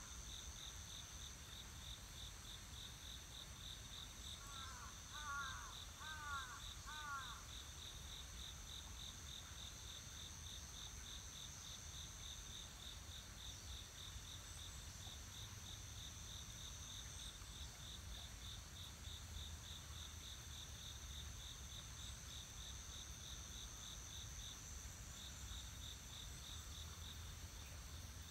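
Insects chirping steadily outdoors: one with a rapid, regular pulsing chirp and another with a continuous high-pitched buzz. About five seconds in, a bird gives a short run of quick calls.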